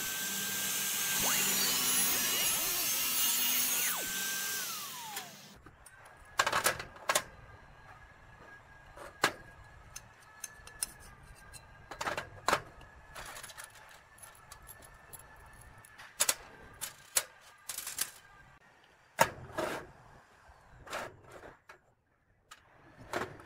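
Angle grinder with a cutting disc running loudly, then its whine falling in pitch as it winds down about five seconds in. After that, a dozen or so short, sharp knocks and clinks of steel tube, brackets and bolts being set down and handled on a steel workbench.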